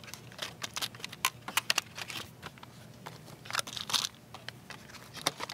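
Plastic-wrapped M&M's candy eggs in cardboard display trays being pushed and straightened on a store shelf: irregular light clicks and taps, with a crinkling, sliding rustle of plastic wrap about three and a half seconds in.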